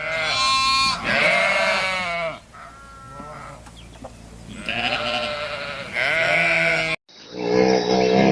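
A farm animal bleating: several wavering calls that cut off abruptly about seven seconds in, followed by a different animal sound.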